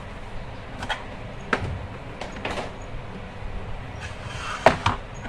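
A plastic tray being handled and set down on a wooden desk: a few light knocks and scrapes, then two sharp knocks close together near the end, the loudest of them.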